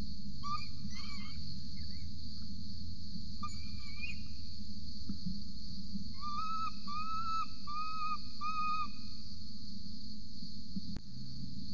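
Juvenile peregrine falcon's food-begging calls: a few short calls in the first four seconds, then four longer drawn-out calls in quick succession in the second half.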